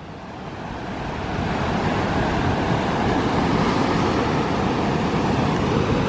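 Ocean surf: big waves breaking and washing in foam, a rushing noise that swells over the first second and a half and then holds steady.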